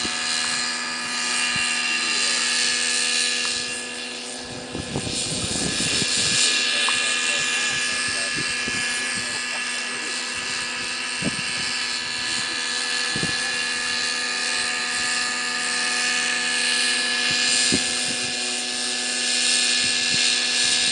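Align T-REX 600 Nitro Pro radio-controlled helicopter in flight: its nitro glow engine and spinning rotors make a steady, high-pitched whine that holds one pitch throughout. A few brief low thumps come around five seconds in.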